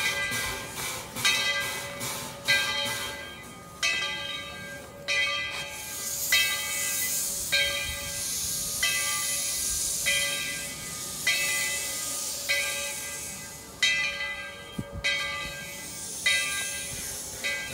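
Steam locomotive bell ringing steadily, one stroke about every second and a quarter, on Tweetsie Railroad's No. 12 ten-wheeler. Steam hisses from the open cylinder cocks alongside it, loudest in the middle stretch.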